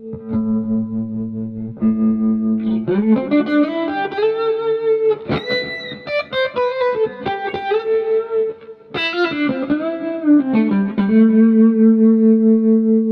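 Electric guitar (Tokai Les Paul-style) played through a Fulltone Supa Trem tremolo pedal into a Mesa Boogie Mark V amp. A held note pulses evenly in volume, followed by a lead run with string bends, and the phrase ends on another held, pulsing note.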